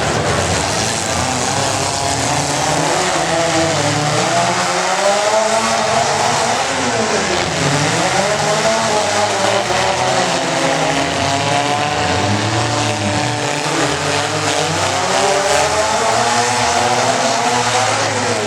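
Compact truck's engine running hard at high revs for a long run, its pitch wavering up and down.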